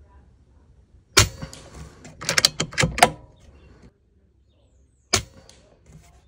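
Air rifle shooting pellets: a sharp crack about a second in, a quick run of several cracks and clicks around two to three seconds, and another single sharp crack about five seconds in.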